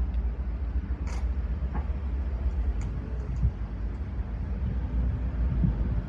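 Heavy construction machinery engine running with a steady low rumble, with a few faint clicks over it.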